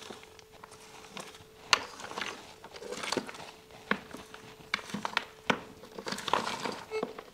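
Irregular clicks, knocks and crinkling of rubble and debris being picked through, over a faint steady hum from a metal detector that fades out a little past halfway.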